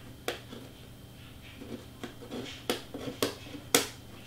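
Handling noises at a craft table: about four sharp clicks or taps, the loudest near the end, over faint rustling.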